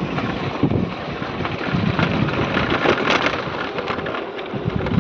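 Wind buffeting the microphone: a steady rough rush with uneven crackles.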